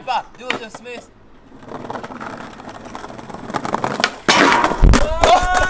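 Skateboard wheels rolling over brick paving and getting louder, then a loud scrape as the board hits and grinds along a metal bench, about four seconds in. A strong, steady pitched sound is held near the end.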